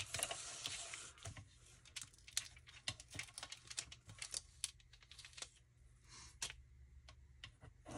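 Envelope paper being torn and peeled by hand off the clear plastic window film: faint tearing and crinkling with scattered small crackles and clicks.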